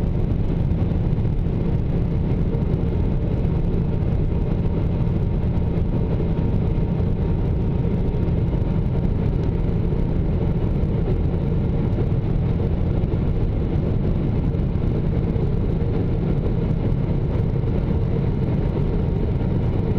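Jet airliner cabin noise during the climb-out after takeoff, heard from a window seat: a steady low rumble from the turbofan engines and the airflow, with a fainter hiss above it.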